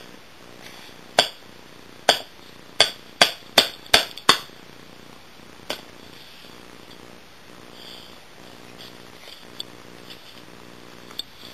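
A quickening run of about eight sharp taps over four seconds, then a few fainter ones, as a baby bangs a small hand-held object. Under them, a faint low purring hum comes and goes.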